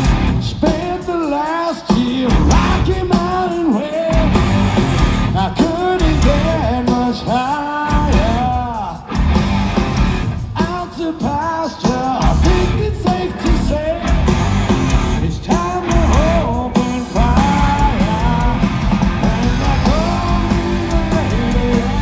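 Live hard rock band playing loud, with electric guitar, bass, drums and a lead singer, recorded from the audience at a concert.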